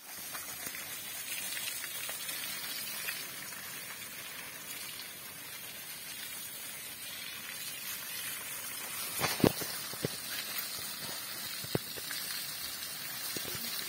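Water from a garden hose spraying and splashing onto an elephant's leg as it is scrubbed, a steady hiss. A few sharp knocks come in the second half, the loudest about nine and a half seconds in.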